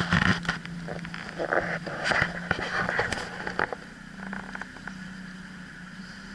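Boat motor running steadily at low revs. Scattered knocks and clicks sound over it for the first few seconds, after which the sound settles quieter.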